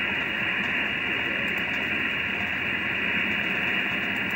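Steady shortwave receiver static from an RTL-SDR receiver demodulating upper sideband on the 10-metre ham band, heard through the computer's speaker: an even hiss cut off above about 3 kHz by the sideband filter, with no clear voice standing out of it.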